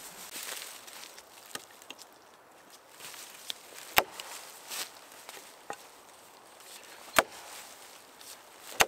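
Axe chopping into a green poplar log lying on the ground, bucking it into sections: three sharp strikes, the first about four seconds in, then about three seconds later and a second and a half after that, with faint knocks and rustling between.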